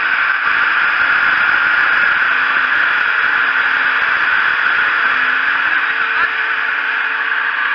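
Positive-pressure firefighting ventilator running steadily at close range: a loud, even rush of air with a faint motor hum under it.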